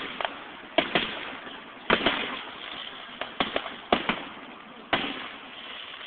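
Fireworks going off: a run of sharp bangs, about one a second and sometimes two in quick succession, each trailing off in a fading rumble.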